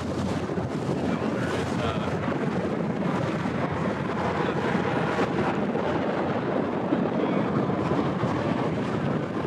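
Steady rush of wind and water at the bow of a river water taxi under way, with a low engine hum underneath.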